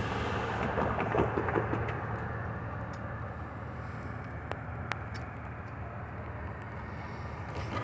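Steady low rumble of a distant vehicle, slowly fading, with a couple of faint clicks about four and five seconds in.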